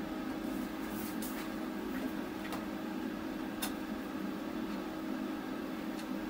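Steady machine hum from powered workshop equipment, with a few light clicks and taps of metal being handled as the unlit plasma torch is guided along the template and the clamped work is adjusted.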